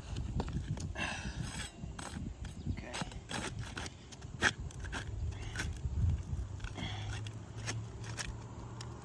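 Hand tools clicking and scraping against asphalt roof shingles as a shingle is worked loose, in scattered short knocks and scrapes, with a low rumble underneath and a steady low hum from about halfway through.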